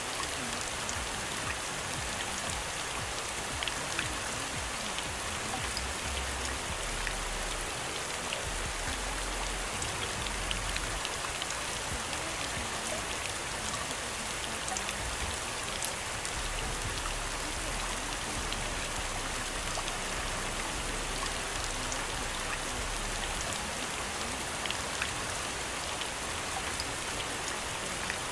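Steady rain falling on a surface: an even hiss dotted with scattered drop ticks.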